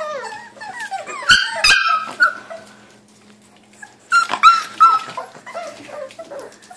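A litter of five-week-old Boxer puppies yipping, barking and whining together in short high-pitched calls that slide down in pitch and overlap. Two thumps come about a second and a half in, and the calls pause briefly near the middle before starting up again.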